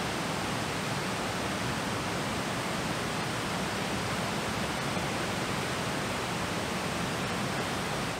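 Whitewater rapids on the Big South Fork River rushing: a steady, even wash of water noise.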